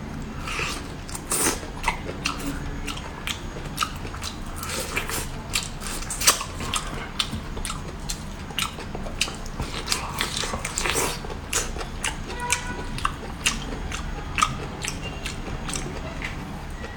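A person biting and chewing seafood close to the microphone, giving irregular sharp wet clicks and smacks.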